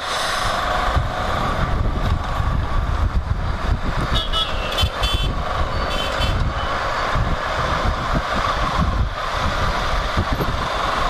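Motorcycle riding through city traffic: wind buffeting the microphone over the engine and road noise. About four seconds in, a few short high beeps come from nearby traffic.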